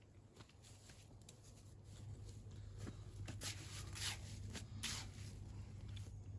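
Several short scrapes of a mason's trowel working mortar against stone, most of them in the middle, over a low steady hum.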